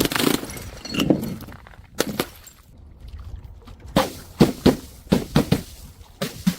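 Glass bottle hitting stair steps: a string of sharp knocks and clinks, a few single hits in the first two seconds, then a quick run of knocks from about four seconds in.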